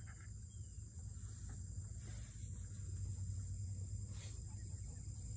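Insects trilling steadily in a continuous high-pitched drone, over a low steady rumble.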